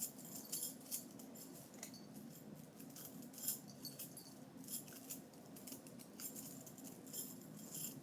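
Faint, irregular light clicking and rattling of a small fidget toy being handled and fiddled with.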